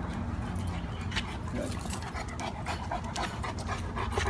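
A St. Bernard panting hard in a run of short, quick breaths that come faster after about two seconds in.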